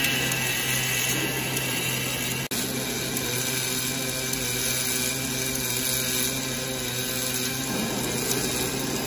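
Wire-fed arc welding by an automatic hydraulic cylinder rod welding machine: steady arc noise over a low machine hum. The sound briefly cuts out about two and a half seconds in.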